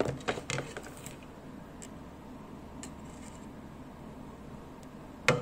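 Light clicks and taps from handling a composite propeller and the screws in its hub, with a sharper click near the end.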